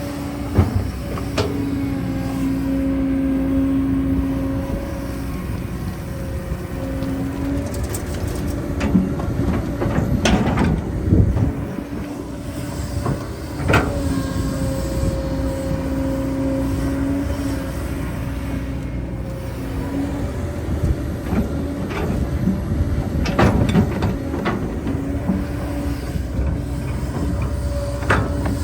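Heavy construction machinery running: a steady engine and hydraulic hum that wavers slightly, with a few sharp knocks and clanks scattered through it.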